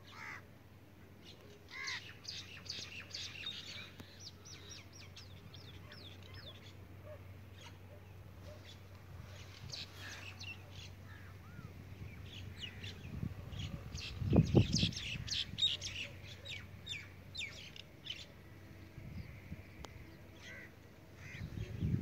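Small birds chirping in quick runs of short, high calls. A brief low rumble about fourteen seconds in is the loudest sound.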